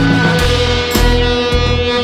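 Background music: sustained notes over a bass line with a regular beat.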